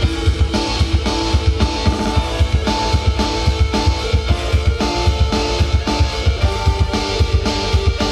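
Loud band-style music with a heavy, steady drum and bass beat and guitar.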